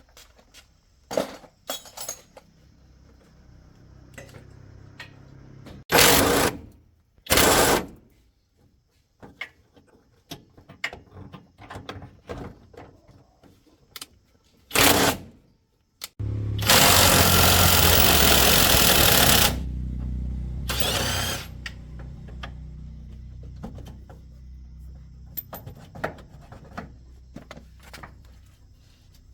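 Repair-work noises on a truck: scattered tool clinks and knocks, two short loud bursts of a power tool, another a little later, then one longer burst of about three seconds past the middle, after which a low steady hum runs on under further clinks.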